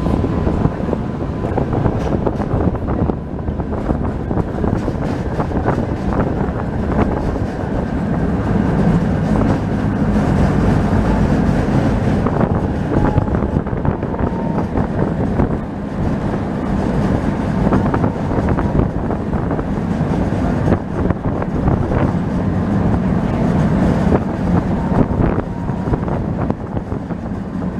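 Steady rumble of street traffic and a passing tram, swelling and easing several times, with scattered light clicks.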